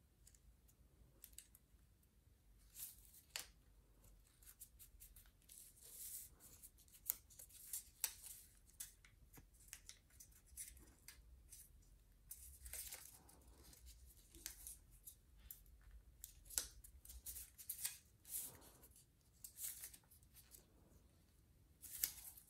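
Faint, crisp rustles and scrapes of a paper origami model being folded by hand and its creases pressed flat by fingers. The sounds come in short, irregular strokes.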